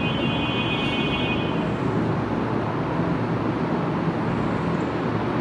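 Steady rushing background noise, even and unbroken, with a faint high-pitched whistle during the first two seconds.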